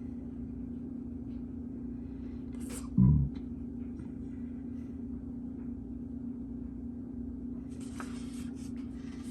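Steady low hum with a single dull thump about three seconds in, then rustling of paper near the end as the pages of a smoke alarm's owner's manual are handled.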